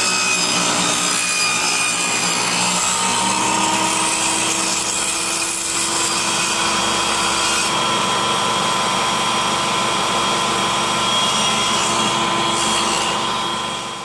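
Makita MLT100 table saw ripping a pine board along the fence: a loud, steady blade whine with the hiss of the cut. A little before halfway the cut ends and the blade runs on free. The sound fades out at the very end.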